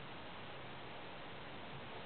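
Steady faint hiss with no distinct sounds: the recording's background noise.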